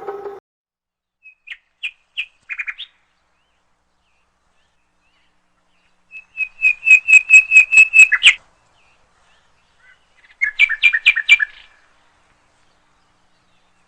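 Bird-like chirping in three groups with silence between: a few scattered chirps, then a fast run of about a dozen chirps on one pitch, then a shorter run.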